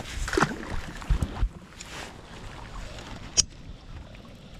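A released bass splashes into the water just after the start, followed by a few low knocks on the inflatable kayak and a single sharp click about three seconds in, over a steady wash of wind and water noise.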